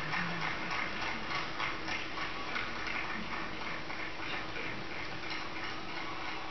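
A quick, even rhythm of sharp beats over a constant background hum, from the soundtrack of event footage played back in a hall.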